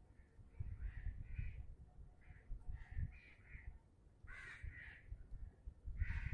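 Crows cawing, a string of short harsh calls repeated throughout, the loudest about four and a half and six seconds in, over a low rumble.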